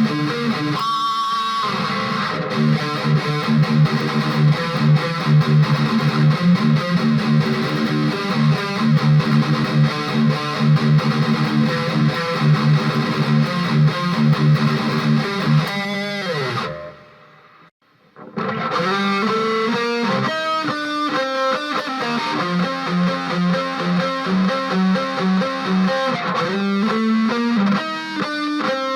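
High-gain distorted electric guitar playing rhythmic chugging riffs through the Flamma FS06 preamp's amp simulation, boosted by a Joyo overdrive pedal. The playing stops briefly about two-thirds of the way through, then the riffing resumes.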